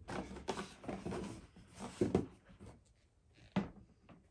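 Cardboard sneaker boxes being handled on a wooden table: a scraping rustle as a box slides into place, then a few soft thumps as the box and a sneaker are set down, the sharpest about three and a half seconds in.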